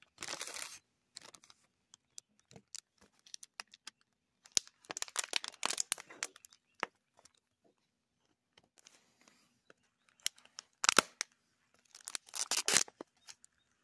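A thin plastic zip bag and an empty plastic water bottle crinkling and crackling as they are handled, in irregular bursts with a few sharp clicks. The loudest crackles come near the end.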